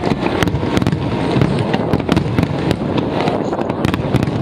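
Large aerial fireworks bursting in a dense, continuous barrage: overlapping deep booms with many sharp cracks layered over them.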